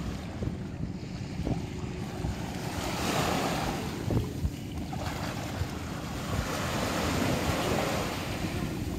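Small waves washing in over the shallows, swelling twice (about three seconds in and again about six seconds in), over a constant low rumble of wind on the microphone. A single sharp knock about four seconds in.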